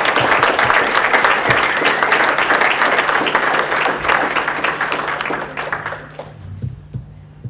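Audience applause: a roomful of people clapping, which dies away about six seconds in.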